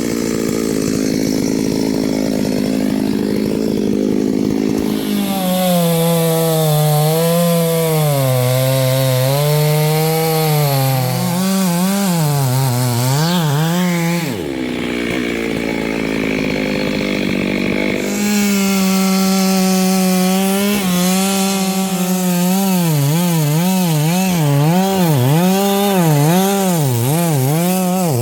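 Two-stroke Stihl chainsaw cutting through a vengai (Indian kino) log, its engine pitch wavering up and down as the chain bogs and recovers in the wood. About halfway through it drops to a lower speed for a few seconds, then cuts again with quicker wavering.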